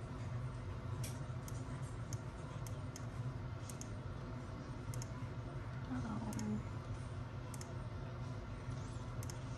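Computer mouse clicking: a dozen or so short, light clicks at irregular intervals, over a steady low hum.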